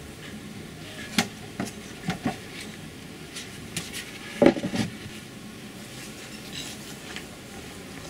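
Expanded-polystyrene nuc box lid being handled and fitted onto the box: a few light knocks and scrapes, the loudest about four and a half seconds in.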